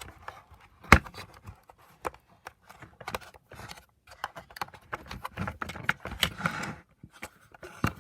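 Plastic housing and parts of a vacuum power nozzle being handled during disassembly: scattered clicks and taps, one sharp knock about a second in, and scraping and rustling later on.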